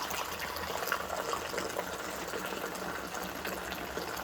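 Water running steadily, as from a kitchen tap, with small splashes and crackles.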